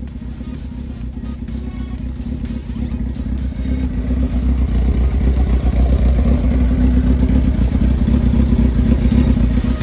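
First-generation Suzuki Hayabusa inline-four running loudly through an Austin Racing stubby exhaust can, a steady deep exhaust note that grows louder over the first half and then holds.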